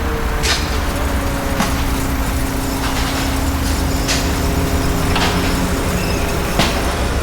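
Construction machinery running, with a heavy low rumble and a steady engine hum. Sharp knocks come at irregular intervals, roughly one every second or so.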